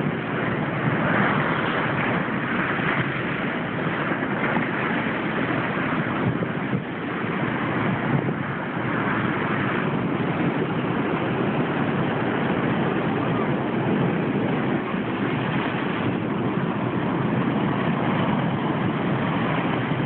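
Steady rushing noise of ocean surf, waves breaking and foam washing up the beach.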